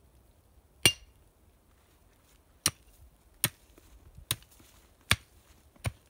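Six chopping strikes of a short hand digging tool into leaf-littered, stony ground, spaced irregularly about a second apart. The first strike is the loudest, with a brief metallic ring.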